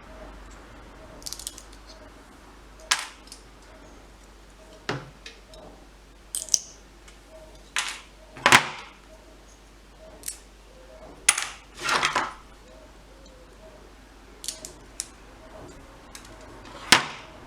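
Scattered sharp clicks and clacks of small hard objects being handled and set down on a workbench, about a dozen in all, one or two of them short rattles.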